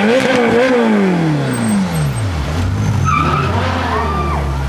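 Ferrari California's V8 engine being revved: the revs peak twice right at the start, then fall away over about two seconds to a steady idle, with one small blip partway through the idle.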